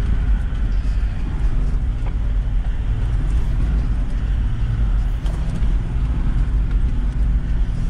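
Toyota LandCruiser 70 Series four-wheel drive heard from inside the cab, driving along a dirt bush track: a steady low engine and drivetrain drone with road noise.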